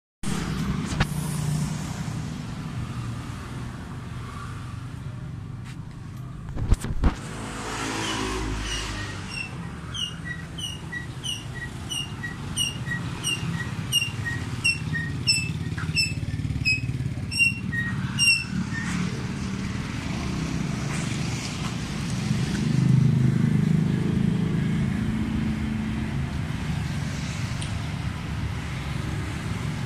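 Yamaha Mio scooter's single-cylinder four-stroke engine idling through an aftermarket KOU Mahachai exhaust, a steady low hum that swells briefly about three-quarters of the way in. Two sharp knocks sound about seven seconds in, and a run of about fifteen short, evenly spaced high chirps sounds over the middle third.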